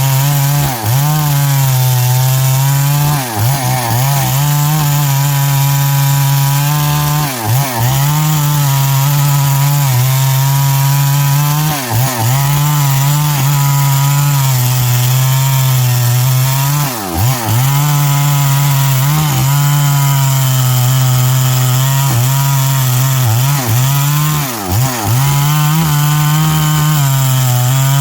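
Stihl MS382 two-stroke chainsaw with a 24-inch bar cutting through wood at high revs, its engine pitch held steady under load and dipping briefly every few seconds.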